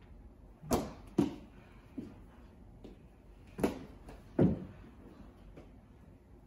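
Sharp plastic clacks and knocks of mini hockey sticks hitting the ball and the floor during play. The loudest come in pairs, about a second in and about four seconds in, with fainter taps between.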